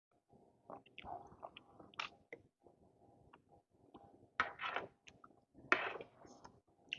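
A person chewing and eating close to the microphone: irregular wet clicks and lip smacks, with two louder noisy mouth sounds about four and a half and six seconds in.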